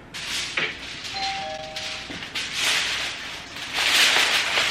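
Rustling handling noise in bursts, with a short metallic ring of two steady tones about a second in.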